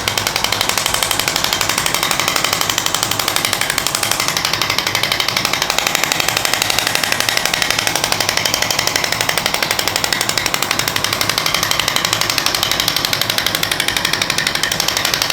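Radial shockwave therapy handpiece firing a rapid, steady train of clicks while it is held over the tender spot on the wrist.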